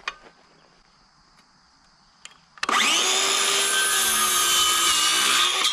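DeWalt circular saw quiet for the first two and a half seconds, then switched on, its whine rising as the motor spins up and holding steady as the blade crosscuts a rough-sawn board, the pitch sagging slightly under the load of the cut.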